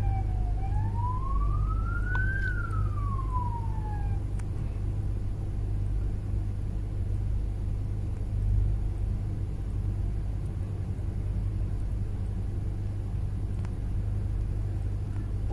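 Police car siren wailing: one slow swing down, up and down again, stopping about four seconds in. A steady low rumble of traffic and engines runs underneath throughout.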